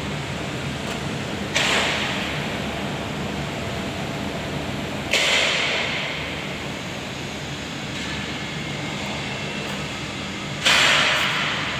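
A steady low hum and noise, broken three times by a sudden hiss that fades away over about a second.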